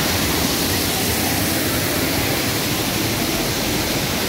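Kempty Falls, a waterfall pouring over boulders into a plunge pool, making a steady, unbroken rush of water.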